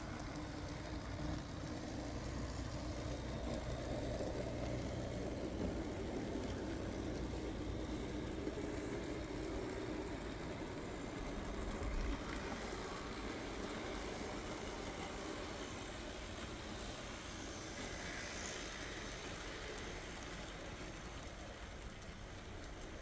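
Märklin Z-scale Class 194 'Crocodile' electric model locomotive running with its freight train: a steady whirring rumble of the small motor and wheels on the track. One brief low thump about halfway through.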